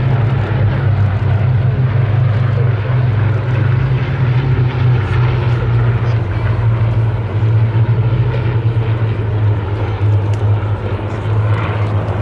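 Several Hawker Hurricane fighters flying past in formation, their Rolls-Royce Merlin V12 engines blending into one steady, loud, low drone.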